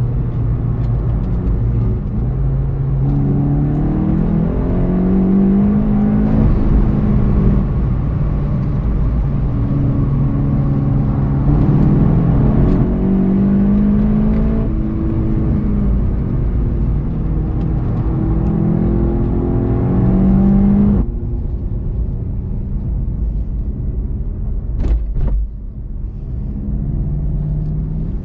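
VW Golf 7 GTI TCR's turbocharged 2.0-litre four-cylinder engine heard from inside the cabin. It revs up again and again, dropping back in pitch at each shift or lift-off. About 21 seconds in it cuts suddenly to quieter, slow running.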